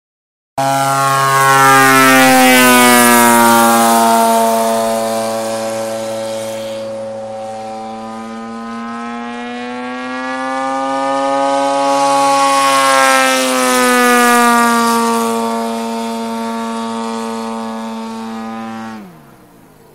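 Gasoline engine of a 42%-scale Solution XX radio-controlled aerobatic plane in flight, its pitch sliding down, up and down again. Near the end the sound drops away sharply, falling in pitch.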